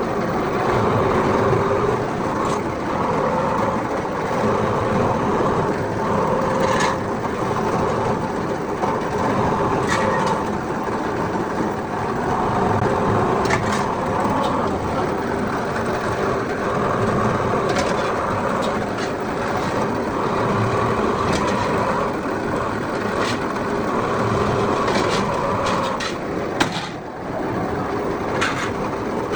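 Workshop machinery running steadily, with scattered sharp clicks and knocks throughout and a brief dip in the noise near the end.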